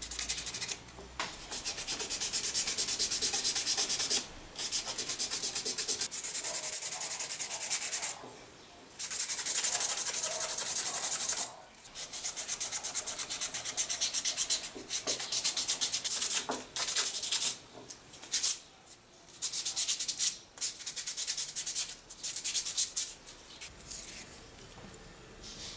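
Sandpaper rubbed by hand over an ox-horn knife handle in fast back-and-forth strokes, in runs of a few seconds broken by short pauses. It fades out near the end.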